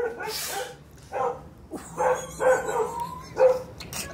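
A woman's short, high-pitched whimpers and pained moans, repeated every fraction of a second, from the pain of something being dug out of her toe with a needle.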